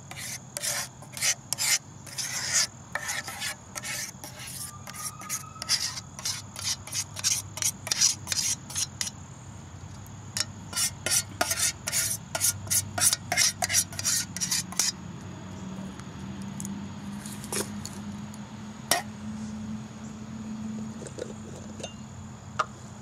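Metal spoon scraping sauce out of a metal camp pot: rapid runs of short scrapes, with a brief pause about nine seconds in. The scraping stops about fifteen seconds in, leaving only a few scattered scrapes.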